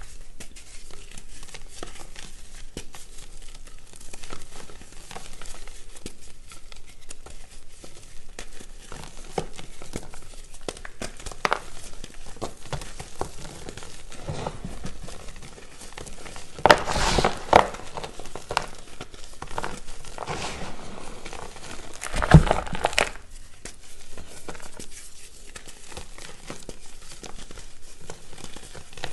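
Reformed gym chalk discs being crushed, making a continuous fine dry crackle with scattered crunches. Two louder, longer crunches come a little past the middle.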